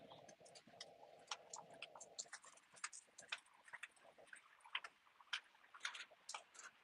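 Small dogs' claws ticking on paving stones as they walk on leashes: faint, irregular quick clicks. A faint steady hum stops about two seconds in.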